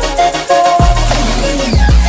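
Background music: an instrumental stretch of an electronic pop song, with a deep bass and a kick drum about every 0.8 seconds.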